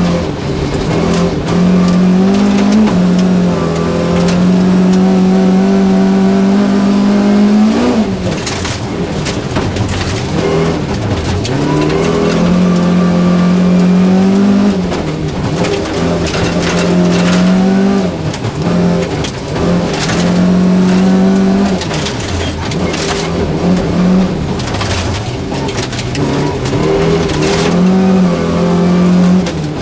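Volvo 240 rally car's engine heard from inside the cabin, held hard at high revs in third gear, its pitch dropping and climbing back several times as the driver lifts and accelerates through bends. Gravel and stones crack sharply against the underbody throughout.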